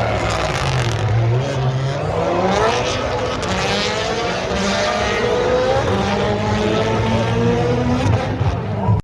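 Rally car engine running hard under load, its pitch dipping about a second in and then climbing again as the car slows and accelerates, with further rises and falls as it works through the gears.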